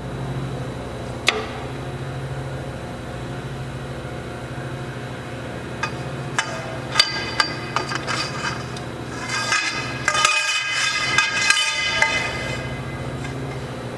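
Hyd-Mech S-20 hydraulic horizontal band saw running with a steady low hum. A sharp metallic knock comes about a second in, then scattered clinks, and over the later part a run of metallic clanks with ringing tones.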